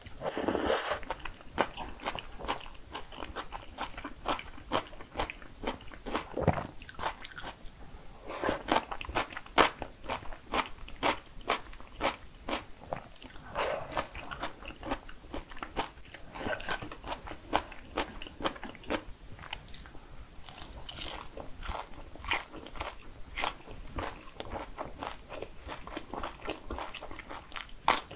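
Close-miked eating sounds: a long slurp of black bean noodles in the first second, then continuous chewing with many small wet clicks and crunchy bites.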